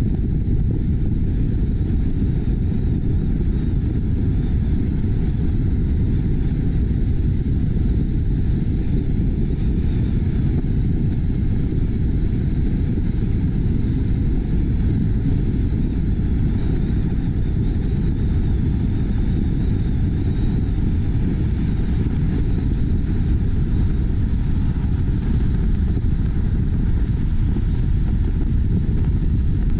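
Wind and road noise from a moving car, picked up by a camera microphone on the hood: a steady low rumble that does not change.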